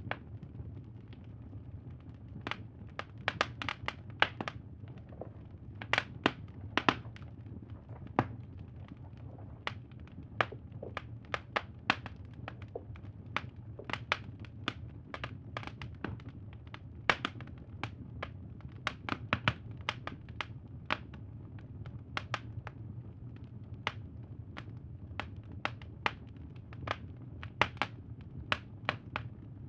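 Wood fire crackling: irregular sharp pops and snaps, sometimes several in quick succession, over a low steady rumble.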